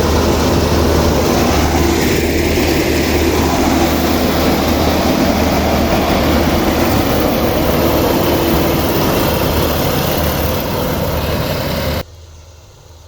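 Half-feed combine harvester running, its engine hum and machinery noise loud and steady; the noise cuts off abruptly near the end, leaving a much quieter background.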